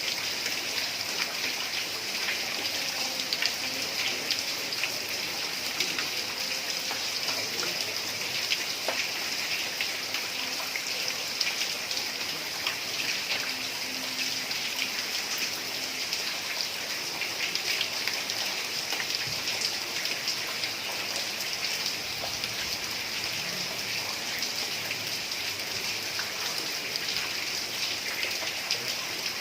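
Heavy rain falling steadily on roof tiles: a dense, even hiss of rain with many small drop impacts ticking through it.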